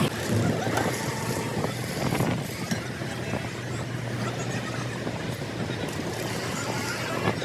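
An engine running steadily, with a few short knocks.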